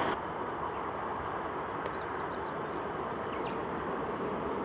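Boeing 747-8F freighter on final approach, its four GEnx-2B engines heard from a distance as a steady rumbling hiss. A few short bird chirps come about two seconds in.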